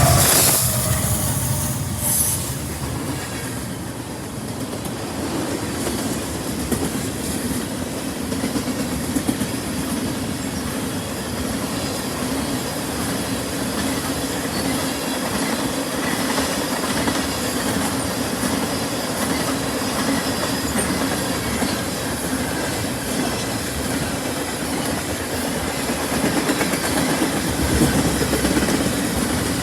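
Freight train cars rolling steadily past on steel wheels, with occasional sharp clacks.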